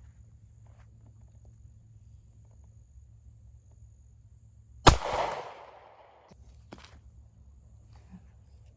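A single gunshot about five seconds in, its echo dying away over about a second.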